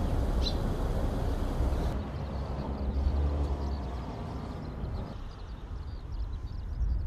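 Outdoor ambience: a low, uneven rumble of wind or distant traffic, with small birds chirping faintly and more and more often.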